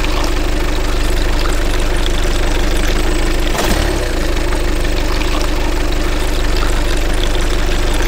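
Diesel truck engine idling steadily, with a brief break about three and a half seconds in where it starts over.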